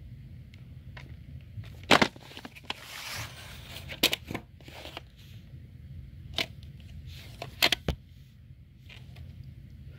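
Handling of a VHS tape and its case: a series of sharp clicks and knocks, with a rustling crackle about three seconds in, over a low steady hum.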